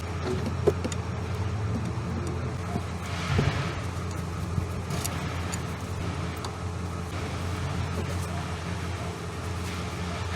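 Steady low mechanical hum, with a few light metallic clicks of hand-tool work on a bolt in the first second.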